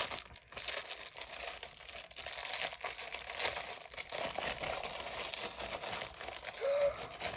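Packaging crinkling and tearing as a pop-it pocket bracelet is unwrapped, a continuous uneven crackle.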